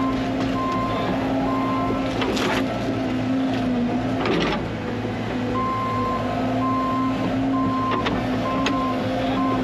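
Excavator's diesel engine running steadily with its travel alarm beeping in a regular on-off pattern. Two short knocks come through, about two and a half and four and a half seconds in.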